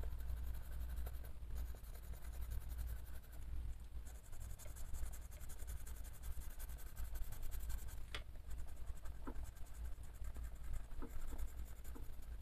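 Grey colored pencil scratching on a coloring-book page in quick, continuous shading strokes, with a sharper tick about eight seconds in.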